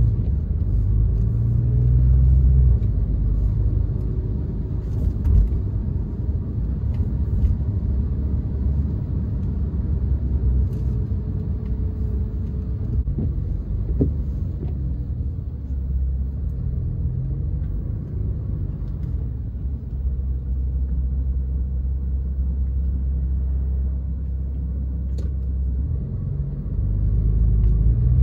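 Porsche 911 Carrera (991.2) twin-turbo flat-six and road rumble heard on board while driving, the low engine note swelling and easing with the throttle, loudest near the start and again near the end.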